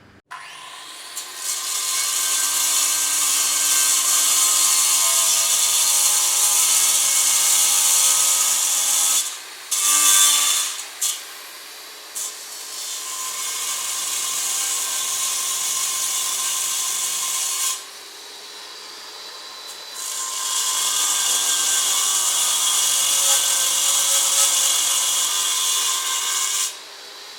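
Electric power tool working wood, its motor whine under a loud hiss, running in several long stretches with short stops between them.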